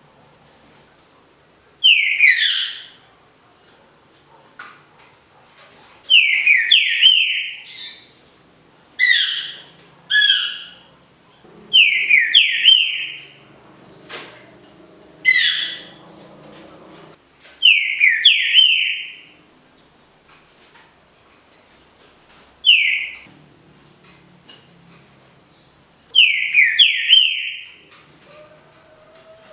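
Green-winged saltator (trinca-ferro) singing its 'canto liso' smooth song, loud clear whistled phrases about a second or two long, repeated every three to four seconds.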